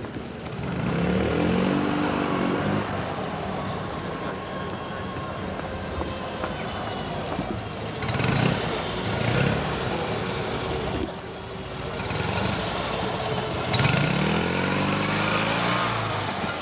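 Rally cars' engines running hard around a cone course, the revs rising and falling several times as the cars accelerate and slow for the turns. The engine sound is loudest about halfway through and again near the end, when a car passes close by.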